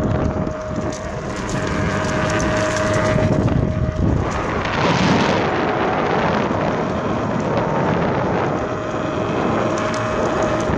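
Fiik Big Daddy electric skateboard riding along a paved path: wind buffets the microphone over the rolling of the wheels, with a steady whine that drops out about four seconds in and returns near the end.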